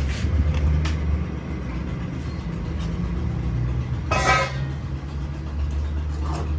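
A steady low mechanical rumble, with a short higher-pitched, honk-like sound about four seconds in.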